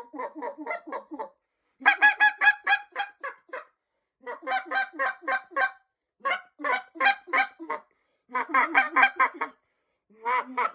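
Single-reed Zink Power Clucker goose call blown in about six quick runs of short honks and clucks, several notes a second, with brief pauses between runs.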